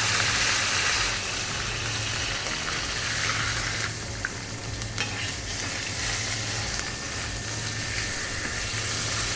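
Chicken breast sizzling in hot oil in a frying pan, strongest in the first second and then steady. A few light clicks of a spoon against the pan come about four to five seconds in as the meat is basted.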